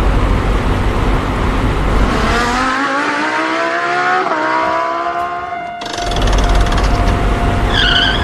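An engine running with a rumble, rising steadily in pitch as it speeds up. Near the end a single steady tone holds while a fast, even rattling sets in.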